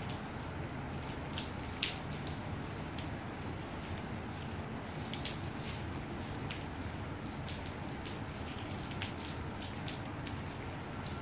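Light rain: a steady hiss with individual drops ticking close by at irregular moments.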